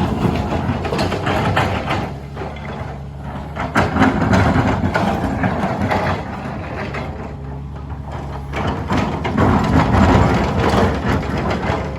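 Cat 320D hydraulic excavator's diesel engine running under load, with the bucket teeth grinding and scraping against rock in three louder surges.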